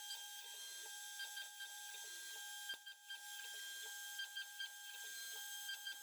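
Stepper motors of a CNC machine moving its axes: whining tones that jump to a new pitch every second or so between short pauses, over a steady high whine.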